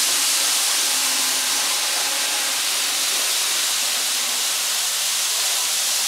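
Steady, even hiss that does not change as the model train crosses and leaves the bridge, with a faint low hum in the first few seconds.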